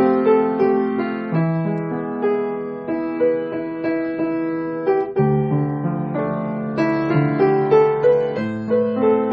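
Background music: a gentle piano melody.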